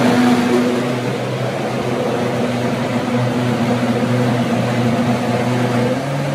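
High-powered commercial countertop blender running steadily at speed, its motor humming as it purées a thick fufu mixture smooth. The sound eases a little about a second in.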